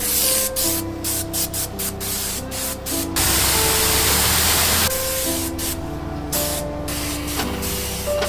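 Spraying hiss in short bursts, with one longer, loud spray held for about a second and a half midway, over background music.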